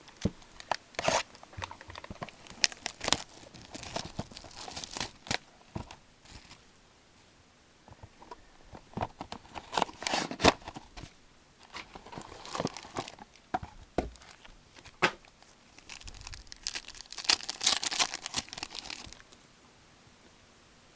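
Plastic and foil packaging of a box of hockey trading cards being crinkled and torn open, in three bouts of crackling and tearing with short pauses between them.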